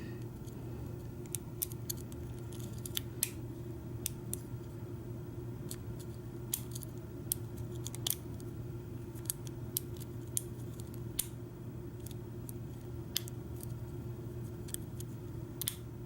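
Lock pick and tension wrench working the pins of a Kwikset deadbolt: small, sharp metallic clicks at irregular intervals as pins are lifted and set, with the lock held in a false set by a spool pin. A steady low hum runs underneath.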